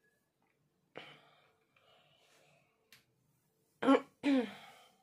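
A woman coughs twice, loudly and close to the microphone, about four seconds in. Before that there are a few faint rustles and a click.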